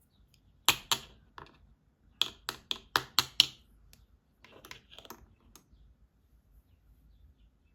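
Hard plastic toy pieces clicking and tapping together as they are handled: two sharp clicks, then a quick run of about six, then a few softer ones.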